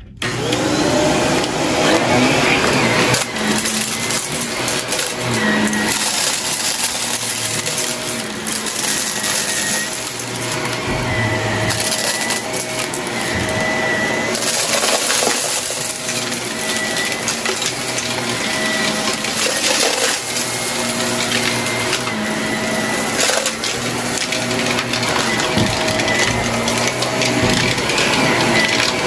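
Shark upright vacuum cleaner running steadily over carpet, sucking up balloon scraps and crumbs with frequent crackles and rattles as the debris goes up into the machine.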